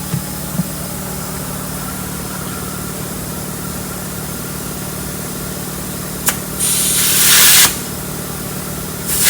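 Compressed air hissing into a tire to seat its bead: a click, then a loud hiss of about a second, and another hiss starting near the end, over a steady low hum.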